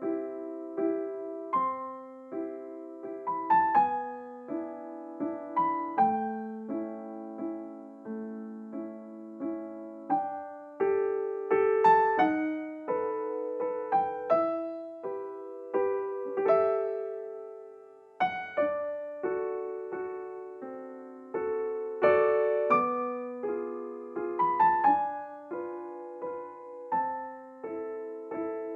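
Soft, slow solo piano music: a gentle melody over sustained chords, each note struck and then fading.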